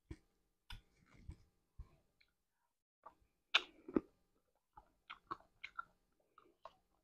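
Close-up mouth sounds of a person chewing a bite of Blizzard soft-serve with brownie and Snickers pieces: irregular wet clicks and smacks. There is a louder cluster about halfway through and a quick run of clicks near the end.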